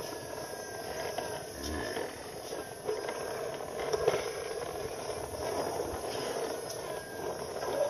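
Plastic toy crane truck pushed by hand over rough concrete, its plastic wheels rolling and scraping with a steady rough rumble and a few light knocks.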